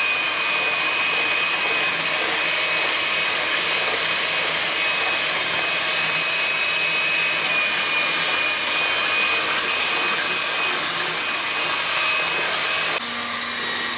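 Electric hand mixer running steadily with a high motor whine, its twin wire beaters whipping cold evaporated milk. Near the end its sound drops in level.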